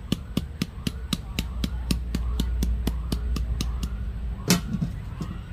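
Large knife chopping lemongrass stalks in quick, even strokes, about six a second, then one heavier chop about four and a half seconds in, over a steady low hum.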